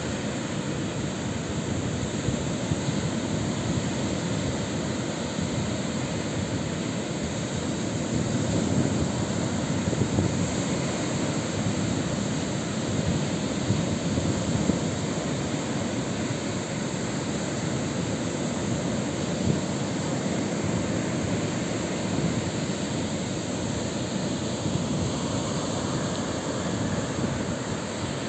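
Baltic Sea surf breaking on a sandy beach: a steady rush of waves with a deep rumble.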